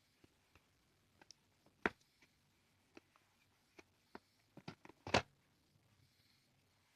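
Scattered light clicks and taps of a smartphone's retail box and packaging being handled and opened, with a sharper click about two seconds in and a louder cluster of clicks around five seconds.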